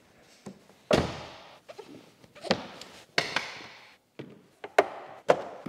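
A series of sharp thunks at uneven intervals, about five loud ones with lighter taps between, each dying away over about half a second.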